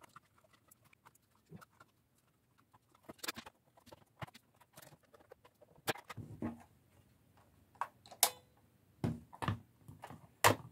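Plastic casing of a SANSUI SCR-B2 boombox being fitted back together and handled: scattered light clicks and taps. Sharper knocks come in the second half.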